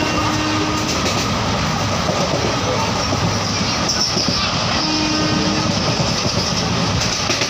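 Passenger train running at speed, heard from the coach window: a steady rumble and rattle of wheels on the rails with rushing air.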